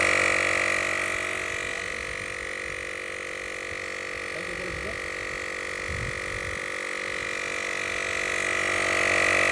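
Portable cordless tire inflator's compressor running steadily with a high hum while pumping air into a low car tire, a little louder near the end.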